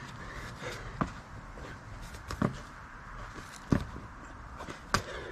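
Hands and sneakers landing on an asphalt driveway during a burpee: four short thuds about a second apart, the loudest a little under four seconds in.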